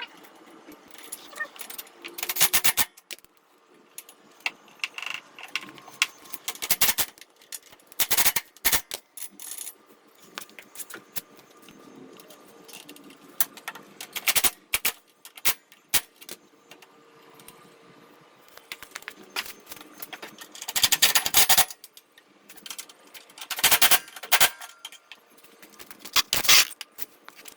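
Wrench work on steel bolts: clusters of quick metallic clicking and clinking as the mower deck's mounting bolts are tightened, with short pauses between.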